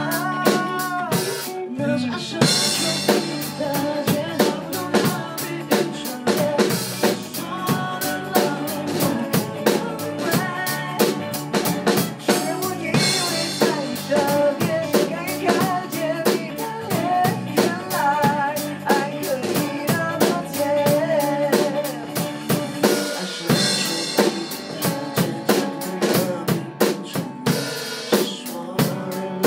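Live band rehearsal: a drum kit keeps a steady beat under the band while two male singers sing a duet into microphones.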